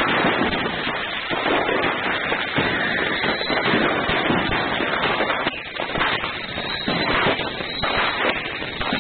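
Fireworks going off: a dense, continuous stream of crackles and pops that thins to separate cracks after about five and a half seconds.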